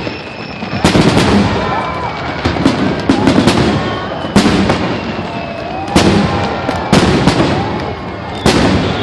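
Fireworks finale barrage: aerial shells bursting in quick clusters of loud bangs, each followed by a trailing crackle.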